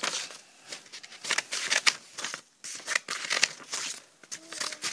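Scissors snipping a row of slits into a folded sheet of paper, with the paper rustling and crinkling as it is handled: an irregular string of short, sharp cuts.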